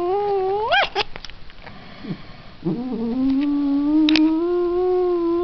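Domestic cat yowling at close range: a long drawn-out yowl that climbs sharply in pitch and breaks off about a second in, then a second long, steady yowl from about three seconds in. A few sharp clicks sound around one and four seconds.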